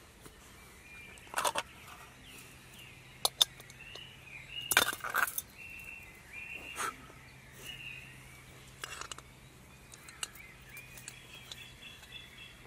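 Sharp clicks and knocks of small camping gear being handled, loudest in a cluster about five seconds in, while birds call in short chirps in the background.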